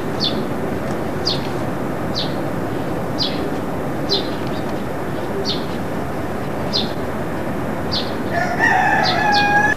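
A rooster crowing once near the end, over a steady hiss, with short high chirps repeating about once a second.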